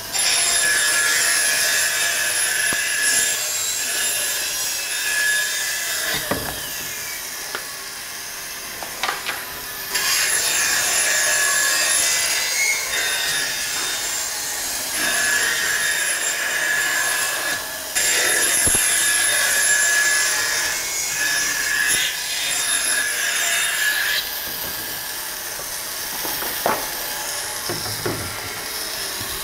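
Bandsaw cutting through a plywood sheet: the blade runs steadily with a high whine, and the cutting noise gets louder in several stretches as the blade bites into the board, easing between cuts.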